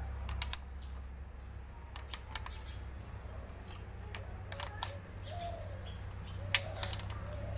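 Scattered sharp metallic clicks and taps of a ring spanner working the tappet lock nut on a small diesel engine's rocker arm while the valve clearance is set, in pairs and small clusters every second or two. Faint bird chirps sound behind them.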